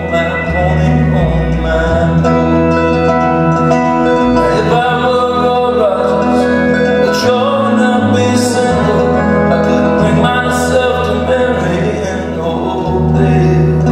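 Live country-folk band playing an instrumental passage: steady, sustained notes over a moving bass line.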